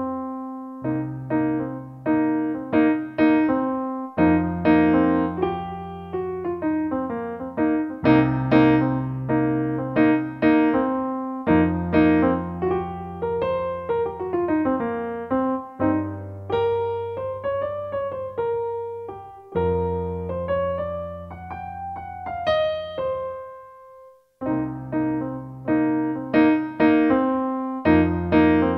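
Background piano music: a gentle melody of struck notes over bass notes that change about every four seconds, with a brief pause about 24 seconds in.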